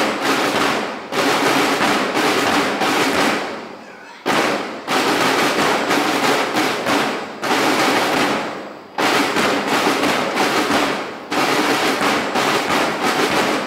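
Firecrackers going off in dense, rapid crackling volleys. It comes in several runs that each fade and then start again abruptly.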